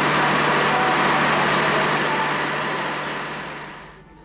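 Steady engine noise of a diesel passenger train standing at the platform: a low hum under a loud hiss. It fades out over the last second or so.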